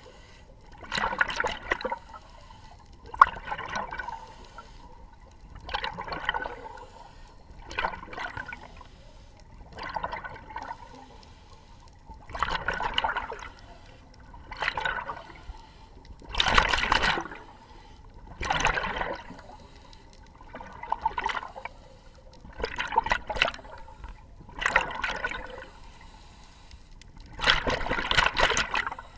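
Scuba diver breathing through a regulator underwater: a burst of bubbles or breath noise about every two seconds, in a steady rhythm.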